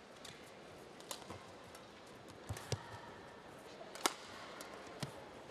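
Badminton rally: a string of sharp racket strikes on the shuttlecock, the loudest about four seconds in, with dull thuds of players' footwork over a low, steady arena hum.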